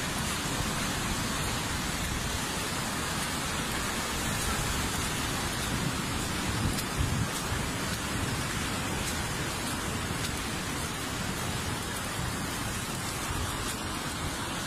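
Swollen brown floodwater rushing and churning down a concrete-walled channel: a steady, dense rush with a few slightly louder surges about halfway through.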